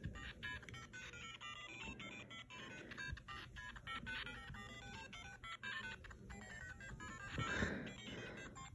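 Faint electronic melody from a small speaker: a fast run of short beeping notes, with a brief rustle about three-quarters of the way through.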